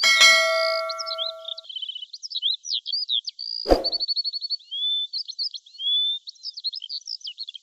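A click at the start with a bell-like chime ringing out for about a second and a half, typical of a subscribe-button animation sound effect. Songbirds chirp and twitter in quick varied phrases throughout, with another sharp click a little past halfway.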